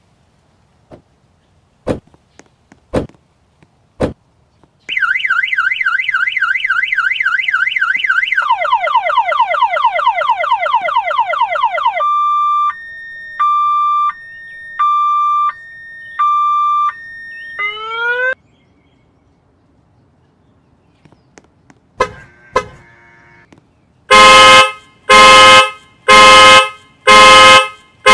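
Car alarm: a few sharp clicks about once a second, then an electronic siren cycling through a fast warble, a faster lower warble, a two-note hi-lo tone and a quick rising whoop. After a pause a car horn honks repeatedly, a little more than once a second, as the alarm sounds the horn.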